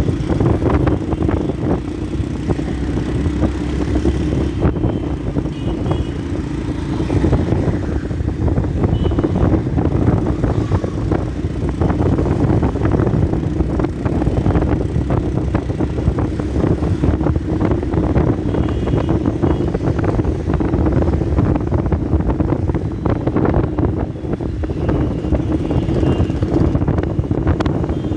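Yamaha FZ-S motorcycle's single-cylinder engine running steadily while it is ridden, with wind buffeting the microphone.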